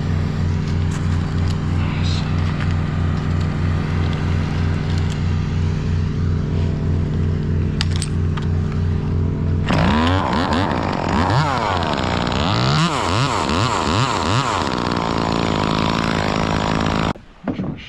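An engine running steadily with a low pulsing note, then revved up and down over and over from about ten seconds in. The sound cuts off suddenly near the end.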